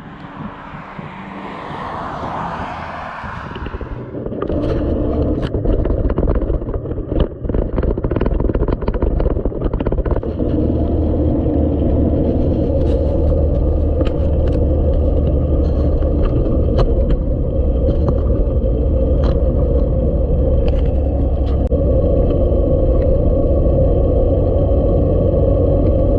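A vehicle running steadily, a low rumble with a steady hum and many rattling clicks and scrapes, building up over the first four seconds.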